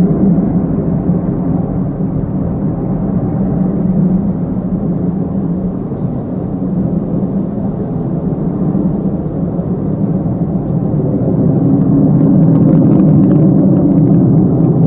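Tupolev Tu-134AK jet airliner's two rear-mounted Soloviev D-30 turbofans, a steady low rumble that dips a little in the middle and swells again near the end.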